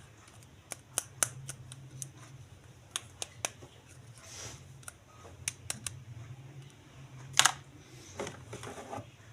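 Toy and packaging being handled: a scattered series of sharp clicks and taps, with a louder rustling scrape about seven seconds in and softer rustling after it.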